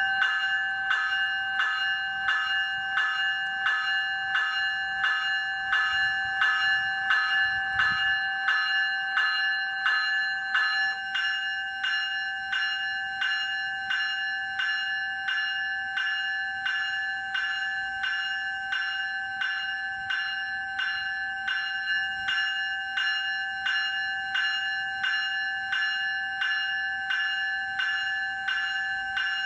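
Graham White E bell, an electric alarm bell, ringing continuously with a bright metallic tone and an even pulsing beat.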